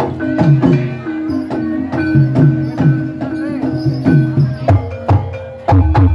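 Live Javanese gamelan music accompanying an ebeg trance dance: struck keys ring over a steady beat of about two strokes a second, with low drum strokes under them. Near the end the music drops away briefly, then comes back louder with a run of low drum beats.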